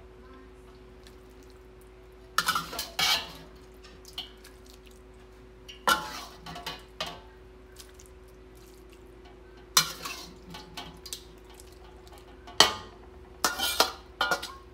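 Large metal spoon scraping and clinking against steel pots in short bursts a few seconds apart, as cooked beef keema is scooped up and spread over a layer of boiled rice. A faint steady hum runs underneath.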